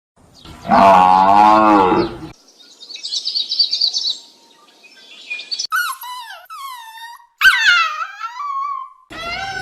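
A string of different animal calls, one after another: a wavering, bleat-like call, then high bird chirping and trilling, then a few high cries that fall in pitch.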